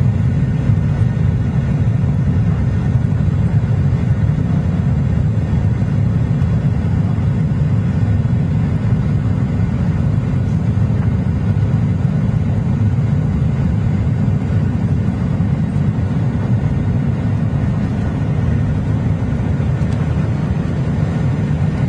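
Steady cabin noise of a Boeing 737-800 climbing after takeoff: its CFM56-7B turbofan engines at climb power and the rush of air, heard from inside the cabin, heaviest in the low range and unchanging throughout.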